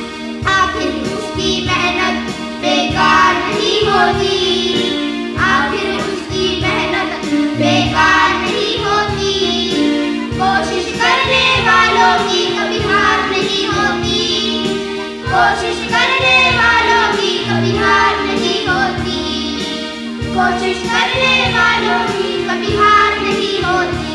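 A group of boys singing a Hindi song into microphones over musical accompaniment with a steady beat.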